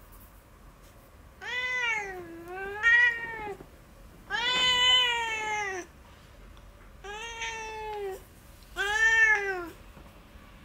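A domestic cat meowing four times in long, drawn-out complaints, each call bending in pitch. It is protesting at being held and having its claws trimmed.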